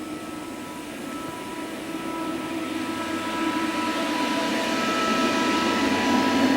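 Mazak V-414/32 CNC mill's control coming up after being powered on: a steady fan-like hum with two steady whining tones, growing gradually louder.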